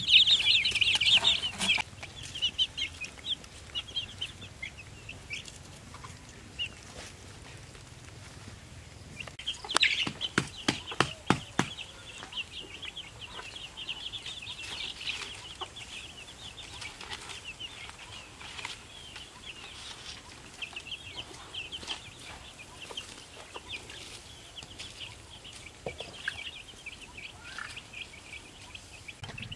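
Young chickens peeping continuously in short high cheeps, loudest in the first two seconds. About ten seconds in comes a quick run of sharp knocks.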